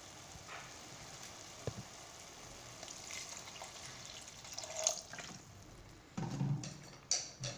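Water poured from a glass into a hot pan of liver frying in an oily onion and tomato sauce: a steady pouring and sizzling hiss. A sharp knock comes about a second and a half in, and a few short knocks and stirring sounds come near the end.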